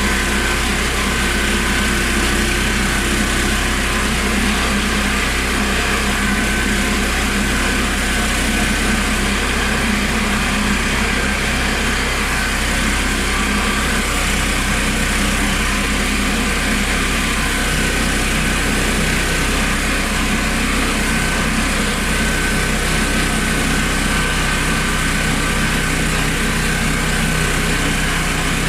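Honda GX390 single-cylinder petrol engine of a homemade portable sawmill running steadily.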